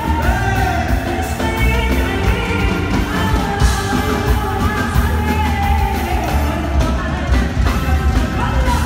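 Live Middle Eastern pop band playing with a woman singing over a steady drum beat, a goblet drum and violin among the instruments.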